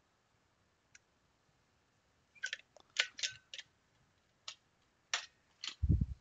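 Scattered light clicks and taps of small parts and tools being handled on a workbench, several in a quick cluster in the middle, then a dull low thump near the end.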